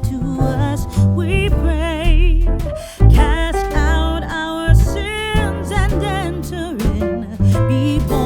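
Background music: a song with a singing voice over bass and a steady beat.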